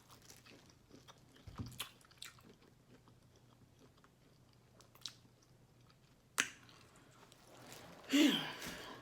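Close-up chewing and mouth sounds of a person eating, with scattered small clicks. There is a sharp click about six and a half seconds in, and a short voice sound falling in pitch near the end.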